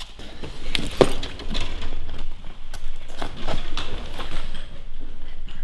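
Irregular clattering and crunching of debris, with a sharp knock about a second in.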